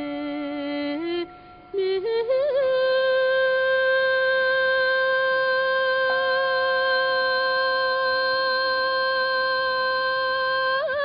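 A voice singing long, steady held notes: a lower note, a brief break, then a wavering glide up to a higher note that is held for about eight seconds before the pitch starts to waver again near the end. A second, softer steady tone joins about six seconds in.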